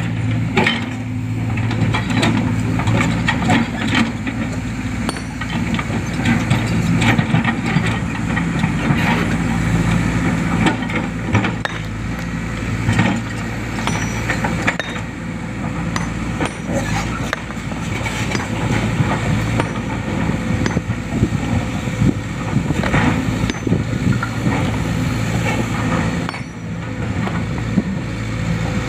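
Sumitomo hydraulic excavator's diesel engine running steadily under load, with repeated knocking and scraping as its bucket pushes and drags a large boulder over rock and sand.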